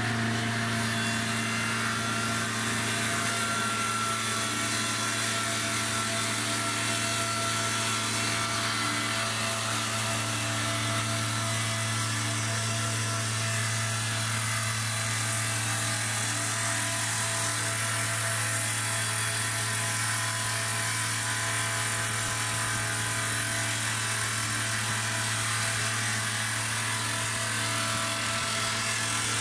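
Mobile sawmill's four-cylinder 50 hp diesel engine running steadily at speed while its hydraulically driven saw chain cuts along an oak log. The engine's steady drone sits under a constant hiss from the cut.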